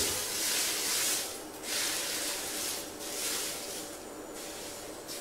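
Hot oil poured from a ladle onto minced garlic, ginger and enoki mushrooms, sizzling in three spells of hiss, each a second or so long, with a short last one near the end.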